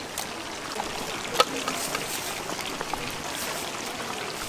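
Chicken deep-frying in oil in a gamasot cauldron: a steady sizzle with fine crackling, and one sharp click about a second and a half in.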